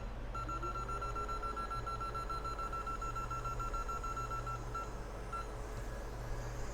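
Electronic beep from a hot-air rework station as it starts up, holding a high tone for about five seconds before it stops. Under it a fan hums and rises in pitch as it spins up, and near the end the hiss of the hot air comes in.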